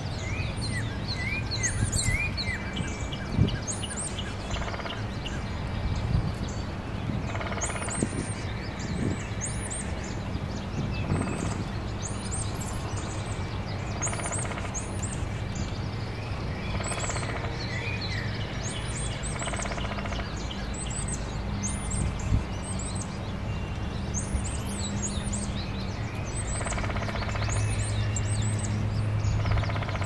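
Backyard songbirds calling: many short, high-pitched chirps, often in pairs, with a few lower chirps and trills. A steady low hum runs underneath and grows louder near the end, and there are a few sharp knocks.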